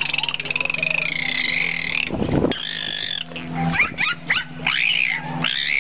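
Dolphins whistling: long, wavering high-pitched whistles and quick rising and falling chirps over a low steady hum, with a brief low rush of noise about two seconds in.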